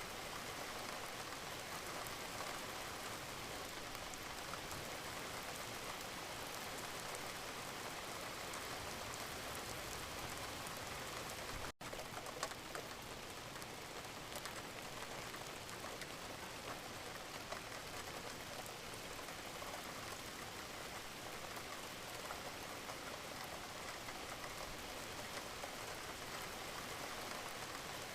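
Steady rain: an even hiss of falling rain speckled with the ticks of individual drops, broken by a split-second dropout about halfway through.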